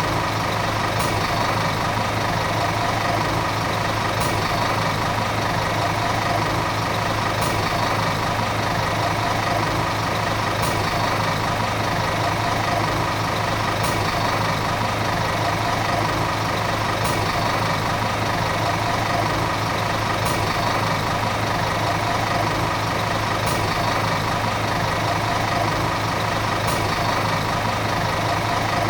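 Volvo city bus diesel engine running steadily at an even, unchanging speed.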